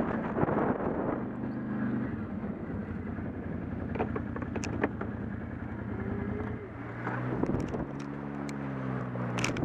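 ATV engine running steadily as the quad rides over a snowy, rocky trail, its note changing at about seven seconds in as the throttle shifts. A few sharp clicks and knocks from stones under the tyres.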